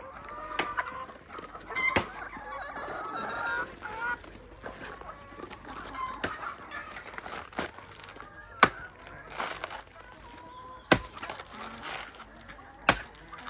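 A flock of brown laying hens clucking and squawking as they crowd and peck, busiest in the first few seconds. Later come a few sharp separate knocks, a machete chopping into a banana trunk.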